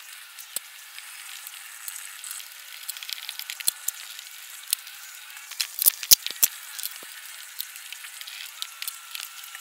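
Scattered sharp clicks and knocks of hand tools and parts as the XZ-axis carriage of a Genmitsu 4040 Pro CNC router is unbolted and removed, over a steady hiss. The clicks come thickest and loudest about six seconds in.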